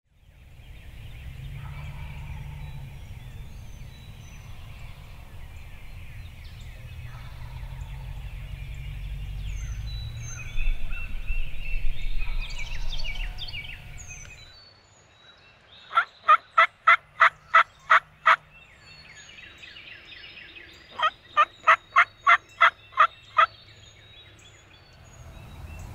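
Wild turkey yelping: two runs of about ten evenly spaced, loud notes, the second run starting about five seconds after the first. Before them come songbird chirps over a low rumble.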